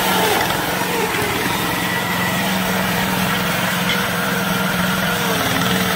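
Small engine of a homemade tracked vehicle running at a steady pitch as the vehicle drives across grass.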